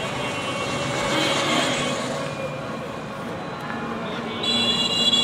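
Street traffic noise from passing vehicles, with a high-pitched tone coming in near the end.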